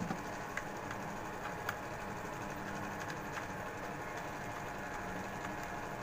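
Steady mechanical hum in the background, with a few light clicks and taps in the first two seconds as wires are handled and fitted to a magnetic contactor's terminals.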